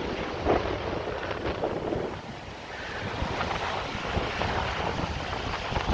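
Rough Atlantic surf washing and breaking, with strong wind buffeting the microphone in gusts.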